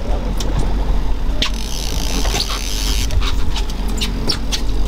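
Trolling boat's engine running with a low, steady rumble, with scattered clicks and knocks and a brief rush of noise about a second and a half in.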